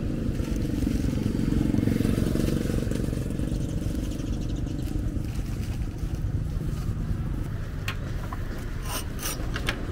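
Street traffic, with a motor vehicle's engine running close by and loudest about two seconds in. A few short sharp clicks come near the end.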